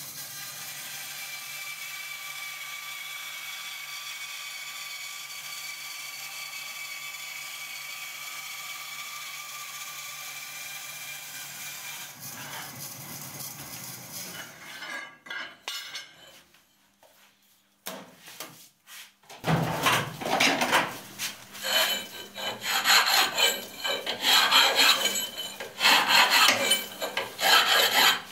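Vertical bandsaw running steadily and cutting through 10 mm aluminium plate; the saw fades out about twelve seconds in. After a short lull, a hand file rasps against the cut aluminium piece in irregular strokes.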